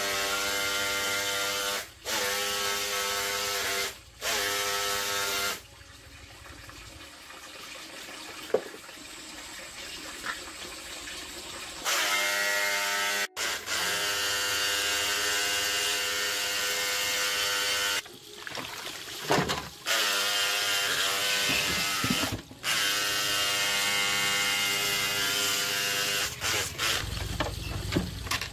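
A small electric power tool motor running at a steady pitch in several separate stretches, each starting and stopping abruptly, with a quieter stretch of scraping noise in the middle.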